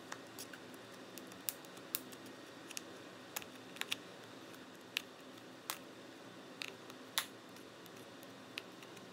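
Metal pry tool clicking and scraping in the seam between an iPod Classic's front and rear case as it is worked along to pop the case clips on a stubborn case. About a dozen small sharp clicks come at irregular intervals over a faint steady room hum.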